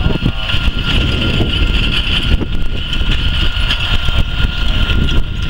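John Deere 8310R tractor running steadily under load as it pulls a 24-row Case IH 1250 Early Riser planter past. A steady high whine sits over the engine's rumble, and strong wind buffets the microphone.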